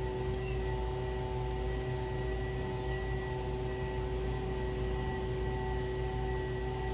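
Steady engine drone: a low rumble with several held tones over it, unchanging throughout.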